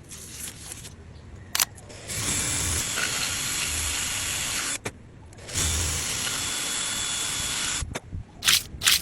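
A power tool runs in two steady bursts of about two and a half seconds each, with a short pause between them, and a few sharp clicks before and after.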